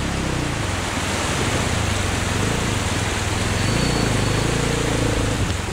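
Motorcycle engine running and revving, its pitch rising and falling, over the steady rush of river water as the bike is ridden through a river crossing.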